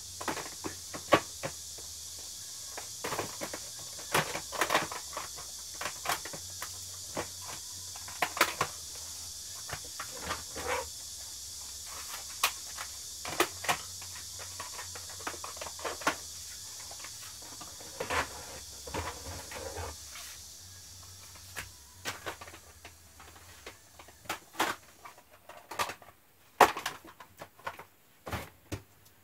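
Plastic cassette tape cases clacking and knocking as they are handled and slid onto wooden shelves, in irregular clicks of varying loudness. A steady high hiss runs underneath and stops about three-quarters of the way through.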